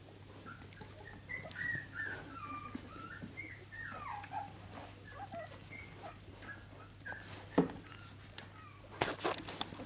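Finnish Lapphund puppies, a few weeks old, whimpering and squeaking in a run of short, high, sliding calls over the first half. A few sharp clicks or knocks follow in the second half, the loudest a little past the middle.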